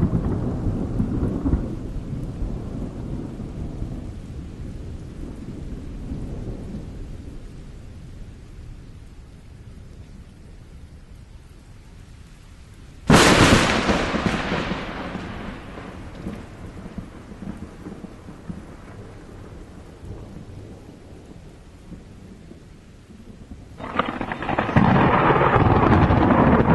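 Thunder: a low rolling rumble dies away, then a sudden sharp thunderclap about halfway through trails off into rumbling. A loud new rumble rises near the end.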